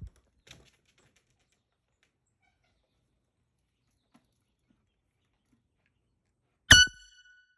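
Near quiet, then one sudden loud bang about six and a half seconds in, a low thump with a high ringing tone that dies away within a second.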